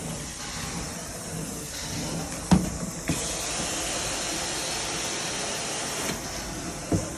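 Shark vacuum cleaner running steadily over carpet, with a hissing rush of air that grows stronger for a few seconds in the middle. Three knocks sound as it bumps or is moved: a sharp one about two and a half seconds in, a lighter one just after, and another near the end.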